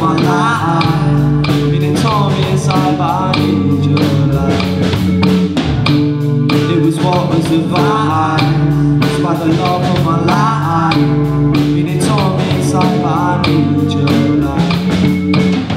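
A rock band playing live: electric guitars, bass guitar and drum kit, with a lead vocal line that wavers and bends in pitch over the band.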